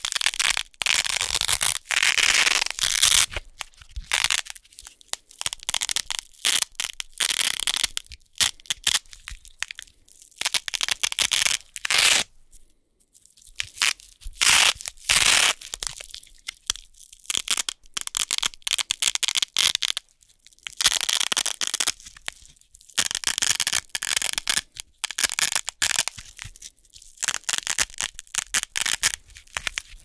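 Wide hook-and-loop (Velcro) tape being peeled apart by hand in repeated crackling tears, the hooks ripping free of the loops, with short pauses between pulls and a longer pause a little under halfway through.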